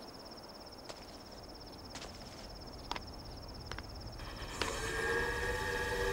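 Insects chirring in a steady, high, pulsing trill, with sharp footsteps about once a second. About four and a half seconds in, a steam locomotive whistle starts, a chord of several steady tones, and it grows louder as the trill stops.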